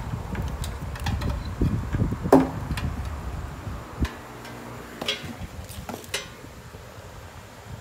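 Handling noise: rumbling and rubbing with scattered clicks and knocks as the bandsaw and its power cord are handled. One sharp knock with a brief ringing comes about two and a half seconds in. After that it is quieter, with a faint hum and a few light clicks.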